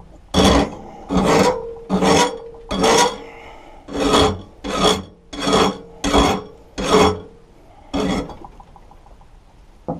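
Hand file rasping along the cutting edge of a steel lawn mower blade clamped in a vise, in about ten even strokes a little under a second apart, stopping about eight seconds in: the blade is being sharpened.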